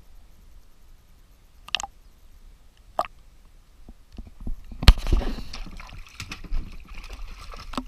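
A swimming dog reaching a kayak and being held at its side by its life vest: water splashing and sloshing against the hull, starting about four seconds in, with one loud knock just after it starts.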